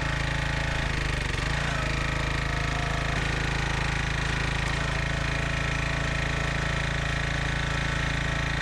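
Huskee log splitter's small gas engine running steadily at an even speed.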